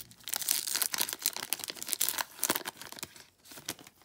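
Foil trading-card pack wrapper crinkling and tearing as it is pulled open by hand, a dense run of crackles that thins out near the end.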